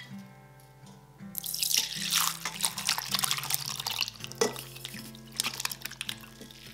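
Water running, probably from a tap, starting about a second in and easing off near the end, over steady background music.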